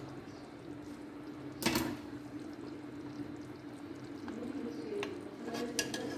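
Steel ladle moving through a pot of thin curry gravy, the liquid sloshing, with one louder knock of metal against the pan a little under two seconds in and a few light clinks near the end. A steady low hum runs underneath.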